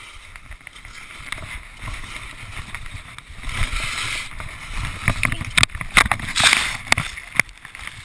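Skis scraping and hissing over snow, with wind rumbling on a chest-mounted GoPro. From about three and a half seconds in, louder hissing sprays of snow, then a run of sharp knocks as snow flies up over the camera.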